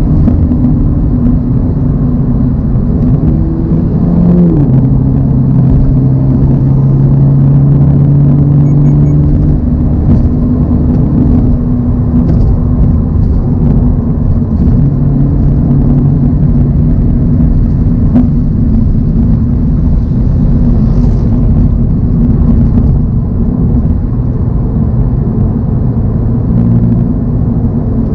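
2024 Toyota GR86's 2.4-litre flat-four engine running steadily at cruising speed over continuous road rumble, with a brief change in engine pitch about four seconds in.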